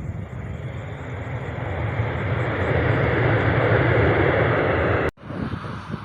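Airliner engine noise, a broad rush that grows louder over about four seconds as the aircraft passes close, then cuts off abruptly about five seconds in.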